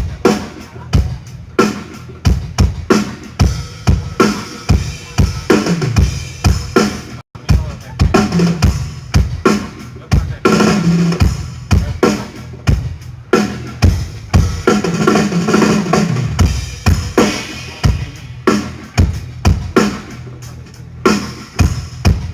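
Drum kit played during a band sound check: steady hard hits about twice a second, with falling low tones in places like tom hits, and a brief cut-out about seven seconds in.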